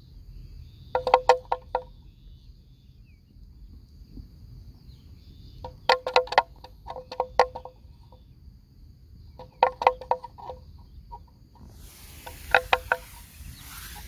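An animal bell clanking in short bursts of rapid strikes, five bursts in all, like a bell swinging as a grazing animal moves its head. A faint steady high insect drone runs behind it, and a brief rush of noise comes near the end.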